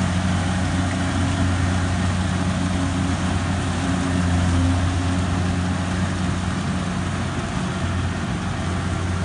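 Kubota DC-70G combine harvester's diesel engine running steadily as it cuts rice, a low hum with even machinery noise over it, growing slightly quieter in the second half as it moves away.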